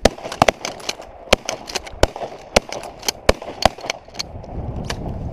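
Shotguns firing a rapid, ragged volley at flying ducks: more than a dozen sharp reports in about four seconds, too many for one gun, so several hunters are shooting at once.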